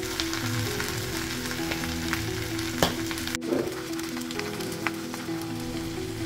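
Pork pieces and milkfish steaks sizzling and crackling in hot oil in a frying pan, over background music of steady stepping tones. The sizzle breaks off for a moment about three and a half seconds in.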